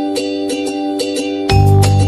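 Background music: a bright plucked-string tune struck in an even rhythm, with a heavy bass line coming in about one and a half seconds in.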